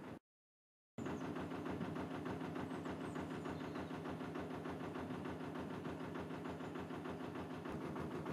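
Narrowboat engine running steadily under way, a fast even chugging with a steady hum. It cuts out completely for under a second just after the start, then resumes slightly louder.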